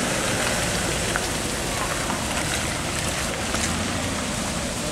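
A small pickup truck's engine running as it drives past close by on a wet, muddy dirt road, over a steady hiss.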